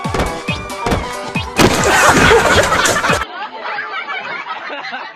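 Music with a regular thumping beat, a loud hiss-like burst for about a second and a half in the middle. A little after three seconds in it cuts off suddenly to quieter, thin background sound with a few voices.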